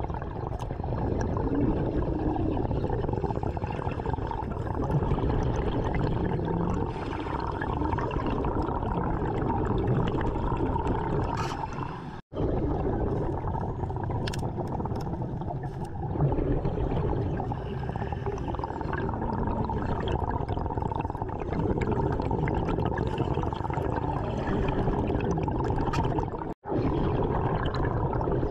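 Underwater sound of a diver breathing through a regulator, with exhaled air bubbling and gurgling in uneven swells every few seconds. The sound cuts out abruptly twice.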